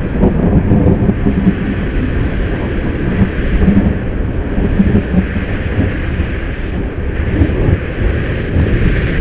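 Strong wind buffeting the microphone with a low, fluctuating rumble, over the steady hiss of heavy rain.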